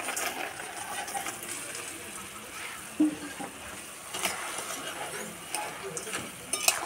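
Fried sago pearls tipped into hot sugar syrup in a metal wok and stirred, the syrup hissing and bubbling, with a few sharp clinks of a utensil against the pan.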